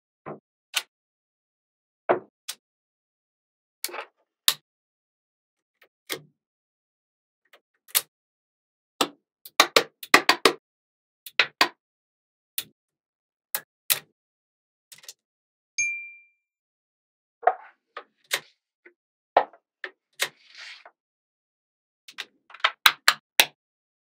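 Small magnet balls clicking as they snap together, in irregular single clicks and quick clusters, with a brief ringing ping near the middle and a short scrape a few seconds before the end.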